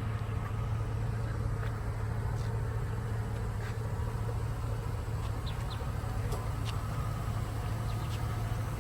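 Steady low hum of an idling pickup truck engine, with a few faint high chirps scattered over it.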